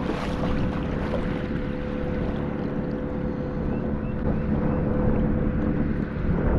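Kayak under way while trolling: a steady mechanical hum over wind buffeting the microphone and water noise, with a few faint high chirps in the second half.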